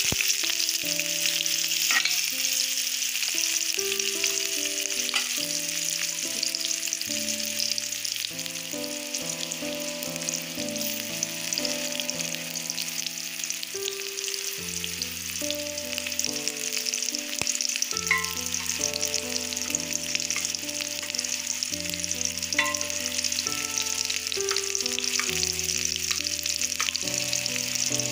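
Sliced onions and dried red chillies frying in hot oil in a kadhai: a steady, loud sizzle, with a few faint clicks.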